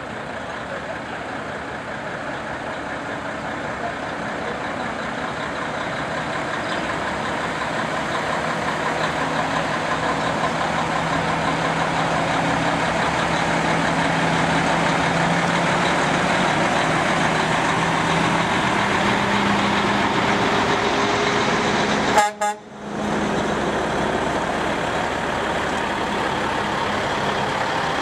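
Heavy diesel truck engines running as big trucks drive slowly past, the sound growing steadily louder as they come close. A brief loud blip and momentary dropout about 22 seconds in.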